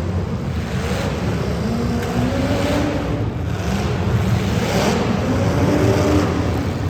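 Street stock race car engines running hard, their pitch rising and falling repeatedly as the cars accelerate and lift off, over a steady low rumble.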